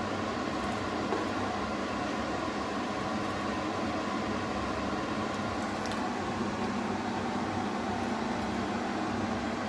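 A steady machine hum, with a few faint clicks from a steel ladle stirring thick jam in the pan.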